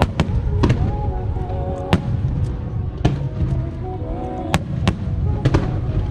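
Aerial fireworks bursting in a show: about eight sharp bangs at irregular intervals over a heavy low rumble, with music playing.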